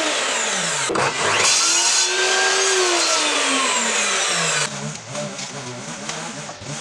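An electric power tool's motor winds down, starts again about a second in, runs up in pitch and winds down once more. From about five seconds in there is a quieter, uneven motor sound with small knocks.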